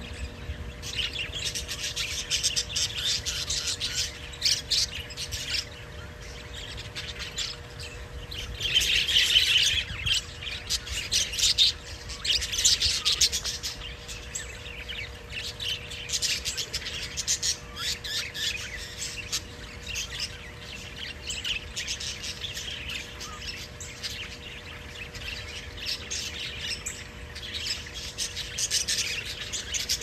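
A flock of budgerigars chattering: a dense, unbroken mix of chirps, warbles and squawks that swells louder several times, most strongly about a third of the way in.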